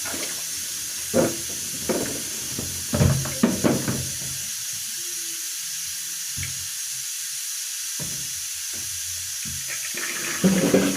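Kitchen tap running steadily into a sink while tomatoes are washed, with several short knocks from the produce and containers being handled: a cluster in the first four seconds and another near the end.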